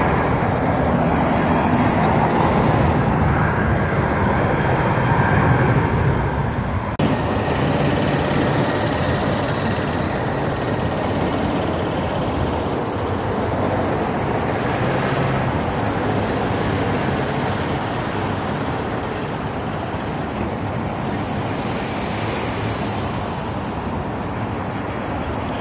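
Steady road-traffic noise, an even rush of cars with a low rumble. The sound changes abruptly about seven seconds in.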